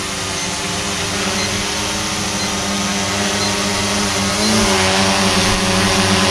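Quadcopter drone hovering just overhead, its propellers giving a steady buzzing whine of several stacked tones. The pitch wavers briefly about four and a half seconds in as it adjusts.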